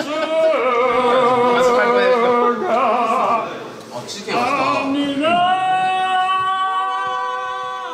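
A voice singing long, held notes, some wavering with vibrato, with a short break about four seconds in before a final sustained note.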